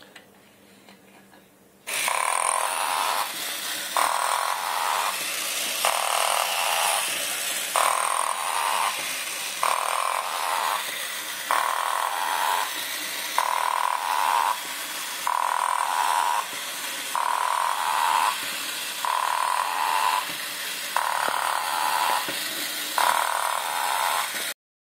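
Battery-operated Masudaya tin toy pirate ship's motor and mechanism starting about two seconds in and running with a whir that swells and drops back in a steady rhythm about every two seconds, stopping suddenly near the end.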